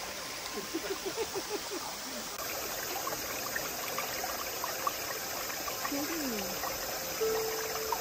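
Shallow, clear stream trickling over stones and pebbles, a steady even sound of running water.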